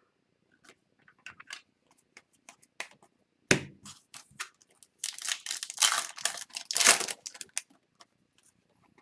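Trading cards being handled and shuffled by hand: light clicks and ticks of cardstock, a sharp knock about three and a half seconds in, then a couple of seconds of rustling and scraping as cards slide against each other.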